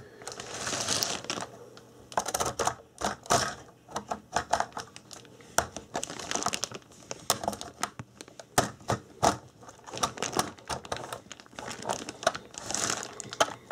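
LEGO bricks being pried apart with a plastic brick separator: irregular sharp plastic clicks and short scrapes as the pieces are worked loose.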